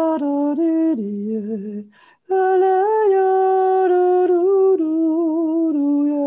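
A man singing a slow, wordless chant in long held notes that step up and down, with a short pause for breath about two seconds in.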